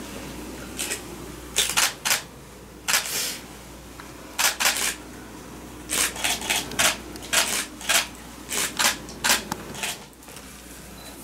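Camera shutters clicking repeatedly, singly and in quick runs of two or three, over a low room hum.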